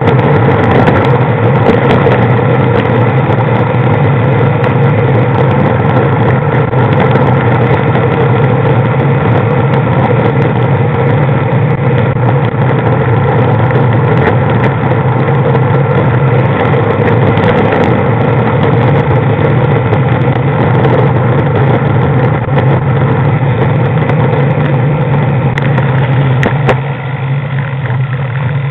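Vehicle engine running at a steady pitch while cruising, heard from on board, with road and wind noise. It eases off and gets quieter near the end.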